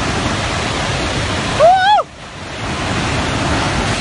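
Steady rushing roar of a muddy flash-flood torrent pouring down a hillside. Near the middle, a person's voice gives one brief high-pitched cry over it.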